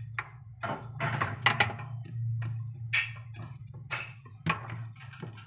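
Scattered small clicks, taps and rattles of a plastic wire connector and its wiring being worked loose at a refrigerator's finned evaporator coil, as the defrost sensor is unplugged for replacement, over a low steady hum.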